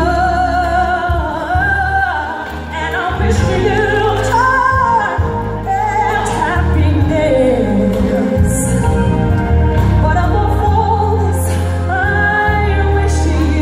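A female singer singing live with band accompaniment, the sung melody wavering with vibrato over a heavy, booming bass.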